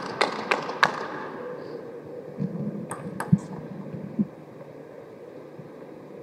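Table tennis ball clicking off the rackets and table in a fast rally, about three hits a second, then a few last hits near the middle with some dull thuds as the point ends at about four seconds in. A faint steady hall hum follows.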